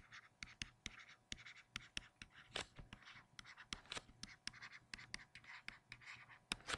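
Stylus tapping and scratching on a tablet as block-capital letters are handwritten: a faint, irregular run of clicks and short strokes.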